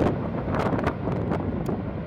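Wind buffeting the microphone in irregular gusts, over the steady low rumble of a twin-engine jet airliner's engines as it rolls out down the runway after landing.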